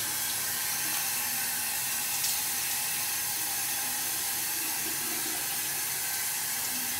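Shower running in a tiled stall: a steady hiss of water from a wall showerhead on weak water pressure.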